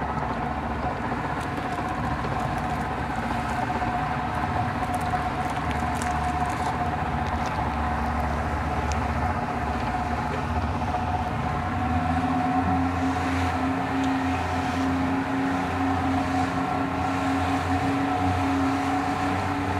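Motorboat engine running steadily with a constant hum and low rumble; about twelve seconds in, a deeper steady tone joins as the engine note shifts.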